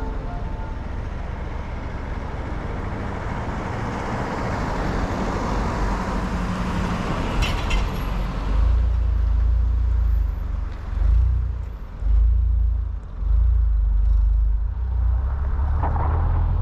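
Car driving along a road: continuous road and engine noise. From about eight seconds in it carries heavy low rumbling surges that come and go.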